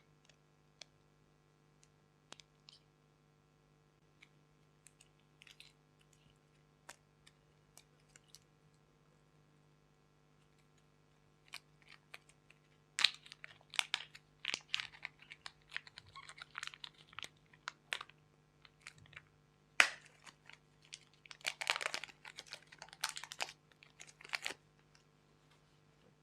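Slime being handled and mixed by hand: scattered sticky clicks at first, then from about halfway in, dense runs of crackling clicks and pops as the slime is squeezed and folded.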